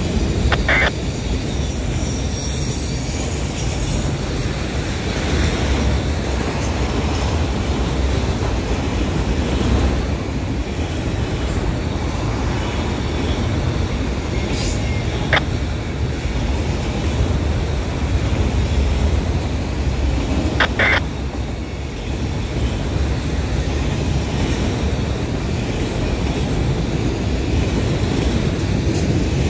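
Freight train of autorack cars rolling past close by, a steady rumble of wheels on the rails. A few short, high wheel squeals cut through it, about a second in and again around the middle.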